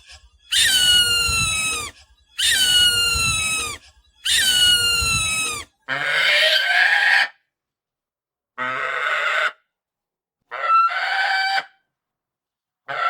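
Falcon screeching: three long, harsh calls of about a second and a half each, dropping in pitch at the end, followed by four shorter, rougher calls with pauses between them.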